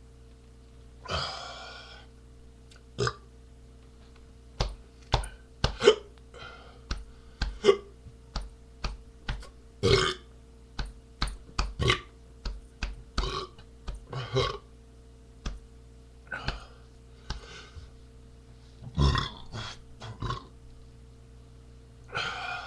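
A man burping over and over: one longer burp about a second in, then a long string of short, sharp burps, often two or three a second, with a few longer ones near the end.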